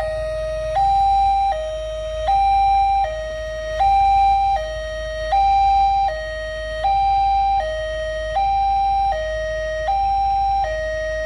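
Railway level-crossing warning alarm sounding a steady two-tone electronic hi-lo tone, switching pitch about every three-quarters of a second, the signal that a train is approaching and the barrier is down.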